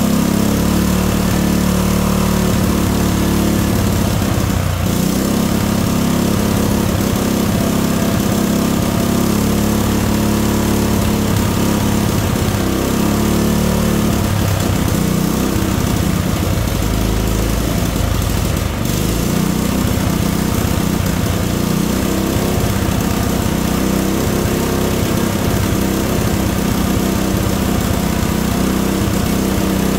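The small engine of a portable generator, fitted with a Thunderstorm generator device, runs steadily under an electrical load. Its running note holds even throughout.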